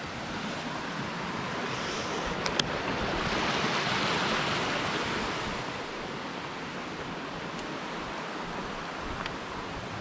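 Steady rushing of a tall waterfall's falling water, swelling louder for a couple of seconds near the middle and then easing back.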